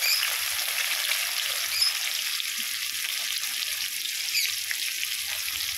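Garlic cloves frying in hot oil and ghee in a kadai, with bay leaf, dried red chilli and whole spices: a steady sizzle as the tempering fries.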